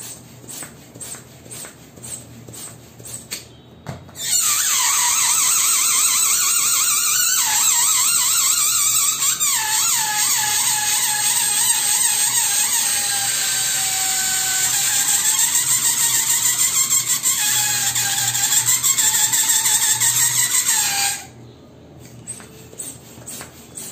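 Air escaping from a latex balloon through its stretched neck: a loud, wavering squeal that sinks slowly in pitch, starts about four seconds in and stops abruptly near the end. Before and after it, a hand balloon pump makes quick rhythmic strokes.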